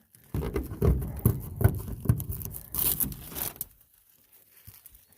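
Protective plastic film and stickers being peeled and torn off polycarbonate greenhouse panels: a crackling, ripping sound for about three and a half seconds.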